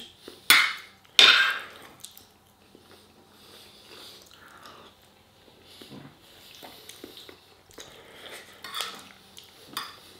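Metal cutlery clinking and scraping on a ceramic plate while a man eats and chews, with two louder sharp sounds about half a second and a second in, then only soft clicks.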